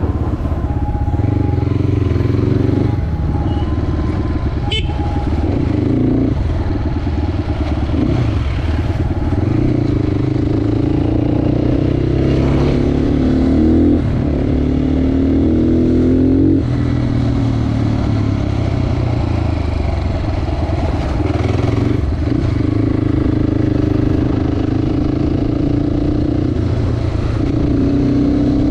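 Crossfire HJ250 motorcycle running with its exhaust dB killer removed, an open, unbaffled exhaust. The engine note climbs as the bike accelerates, then drops at each gear change, several times over.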